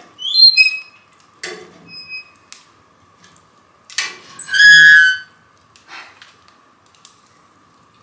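Wood fire in a fireplace crackling with sharp pops, and twice a short high whistle of gas escaping from the burning logs, the second about a second long and the loudest sound.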